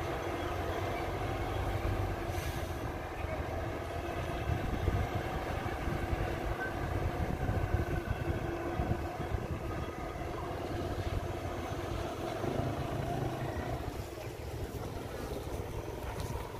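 MTZ Belarus tractor's diesel engine running steadily as it tows a large wagon away, growing a little fainter near the end.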